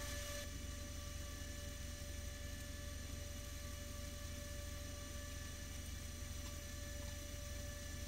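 A steady, quiet hum with a faint even hiss, unchanging throughout; no welding crackle is heard.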